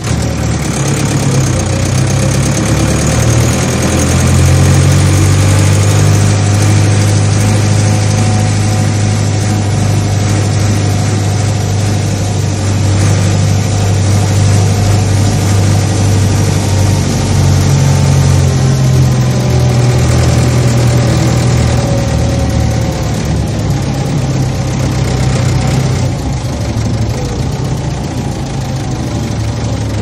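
Farm machine's engine running steadily with a low, even hum, its pitch shifting slightly a couple of times.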